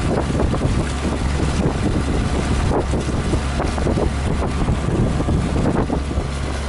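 A sailboat under way: wind buffeting the microphone over a steady low drone.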